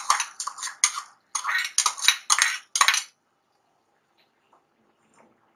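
A spatula scraping and knocking against a pan as it stirs sugar into hot milk and ghee, the first step of a milk-and-sugar syrup. It makes a quick run of about nine strokes for some three seconds, then stops.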